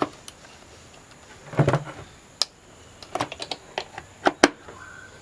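Scattered sharp clicks and light knocks of tools and parts being handled on a workbench, a dozen or so irregular taps, with a short faint tone near the end.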